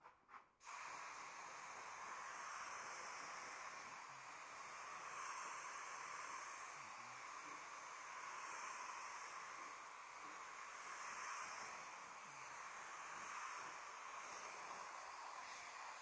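Compressed-air paint spray gun spraying paint: two short puffs as the trigger is first pulled, then a steady hiss of air and atomised paint starting about half a second in.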